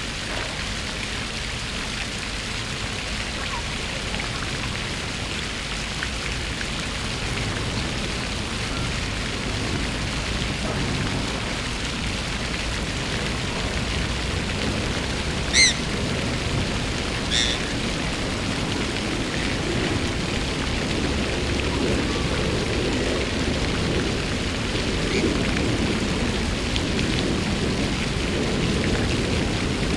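Fountain water splashing steadily, a continuous rushing patter. About halfway through, two short high-pitched chirps stand out, under two seconds apart.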